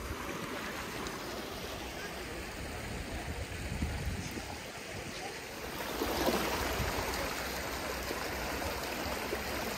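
Fast-flowing water of the Ganges running steadily, a continuous rushing noise that grows louder about six seconds in.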